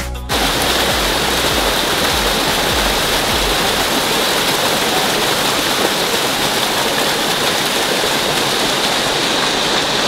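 Small waterfall cascading over rocks in a mountain stream: a loud, steady rush of splashing water.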